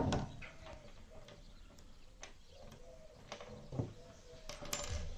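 A few faint small metal clicks and taps as a hand riveter and its spent steel rivet mandrel are handled on a wooden table, over a faint steady tone in the background.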